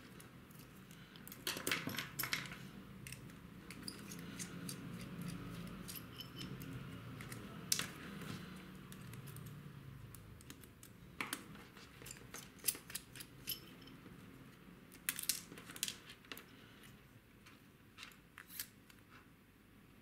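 Scattered light clicks, taps and rattles of small metal and plastic parts of a micro RC car chassis handled by hand: connectors plugged in and screws worked with a hex driver.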